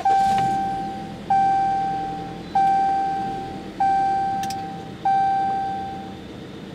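2014 Jeep Cherokee instrument-cluster warning chime: a single ding that rings out and fades, repeating about every second and a quarter, five times, warning that a door is open.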